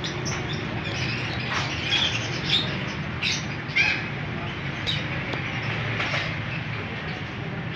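Cockatiels chirping in short, scattered calls, the loudest a few seconds in, over a steady low background hum.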